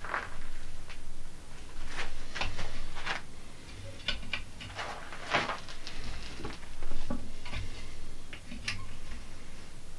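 5 mm steel spring wire clinking and scraping against a homemade mandrel clamped in a vise as a trap spring is wound and bent by hand: irregular metallic clicks and scrapes, the longest and loudest about five and a half seconds in.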